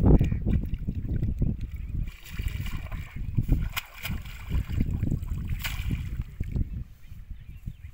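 Shallow muddy water sloshing and splashing as a person wades through a flooded rice paddy, handling and planting bundles of rice seedlings. A gusty wind rumble on the microphone runs under it, with a couple of sharp clicks in the middle.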